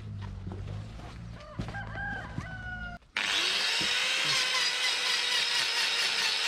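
A rooster crows over a low hum, then about three seconds in an angle grinder starts up and grinds a cow's hoof during hoof trimming. The grinding is loud and high-pitched, with the motor's pitch rising as it spins up.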